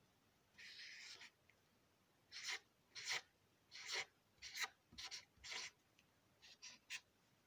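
Felt-tip marker writing on notepad paper: about a dozen short scratchy strokes with brief pauses between them, a few quicker short ones near the end.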